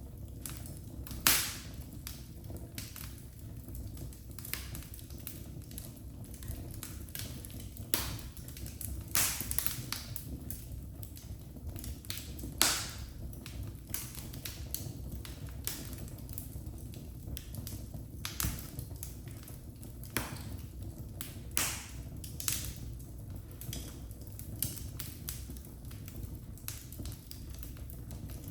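Wood fire crackling in a fireplace: a steady low rumble of burning with irregular sharp pops and snaps, a few of them much louder than the rest.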